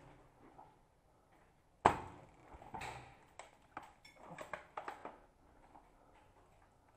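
Airsoft sniper rifle firing a single shot, a sharp crack about two seconds in with a short ring-out, followed by a scatter of lighter clicks and knocks.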